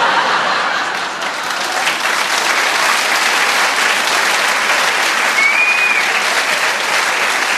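Audience applauding after a punchline, a dense, steady clapping from a large crowd.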